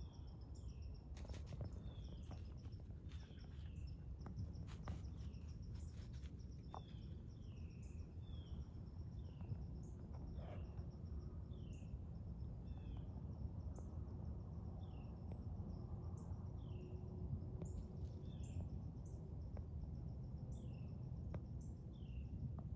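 Woodland ambience: a bird repeats a short falling chirp about once a second over a faint, steady high insect trill and a low steady rumble. Crisp crackles of dry leaves come in the first several seconds.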